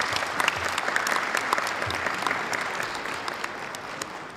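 Audience of delegates applauding steadily, the clapping fading away toward the end.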